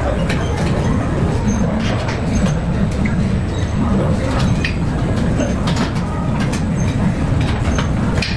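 Gym room noise: a steady low rumble with scattered sharp clicks and clanks, and faint voices underneath.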